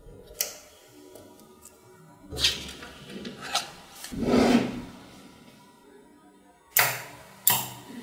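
Small magnetic balls clicking and snapping together as a model is built by hand: several sharp clicks, with a longer rattling scrape a little past the middle.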